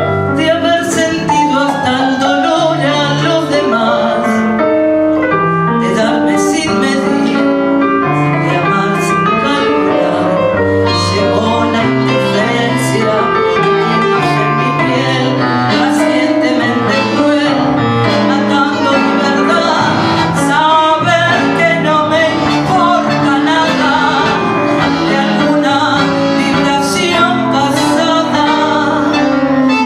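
Tango music from a piano, guitar and bandoneon trio, with piano prominent.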